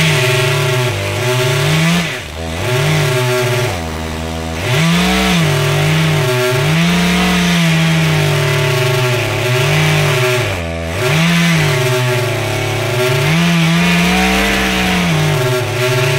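Petrol chainsaw cutting into the base of a tree trunk, its engine note rising and falling under load, with a few brief drops in engine speed.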